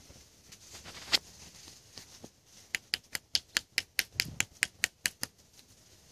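Canon DSLR shutter firing in continuous burst mode: about thirteen sharp clicks at roughly five a second, after a single click about a second in.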